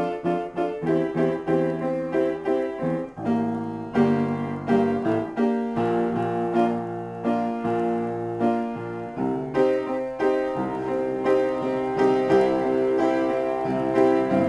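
Upright piano played in a free improvisation: notes and chords struck in quick succession, some of them held and left ringing.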